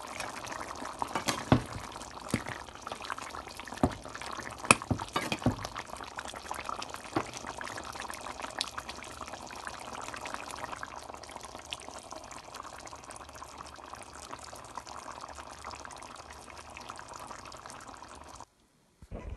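Thick chicken curry simmering in a pot, bubbling steadily with scattered sharp pops as bubbles burst. The sound cuts off suddenly near the end.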